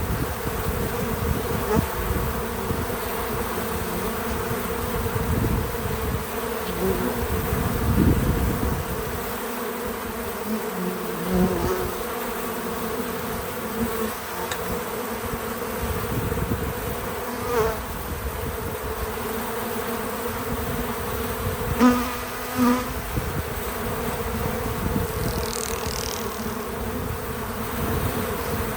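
Many honeybees buzzing steadily around a feeder, a continuous hum with a couple of briefly louder buzzes a little past two-thirds through.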